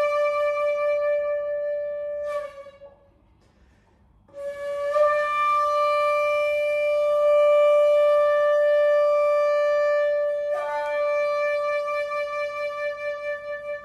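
Solo shakuhachi, the end-blown bamboo flute, playing long held notes. The first note tails off and dips in pitch, there is about two seconds of silence, then the same note is blown again and held, broken once by a quick flick to other notes, and ends with a slow wavering vibrato.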